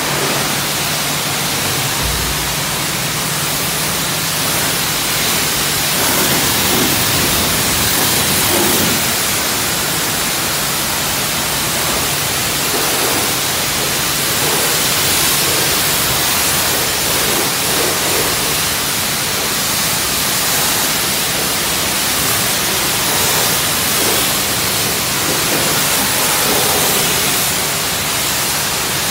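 Self-serve car wash high-pressure wand blasting a steady jet of water against an SUV's body panels, a loud continuous hiss.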